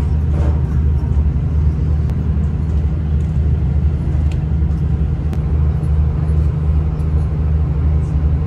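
Steady low rumble of a passenger train running along the track, heard from inside the carriage, with a few faint clicks.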